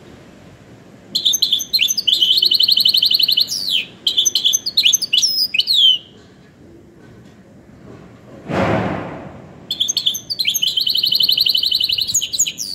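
Goldfinch × canary hybrid (mule) singing goldfinch-style song: two phrases of rapid trills and quick sweeping notes, the first lasting about five seconds, the second starting near the end. Between them, about eight seconds in, there is a short rushing noise.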